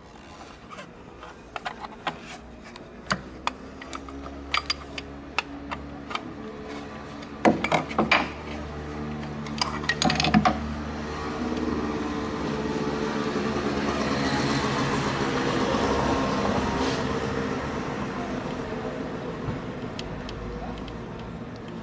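Metal hand tools clicking and clanking on car engine parts as an alternator is unbolted, with a few louder metal knocks about 8 and 10 seconds in. Then a steady engine-like drone swells and slowly fades.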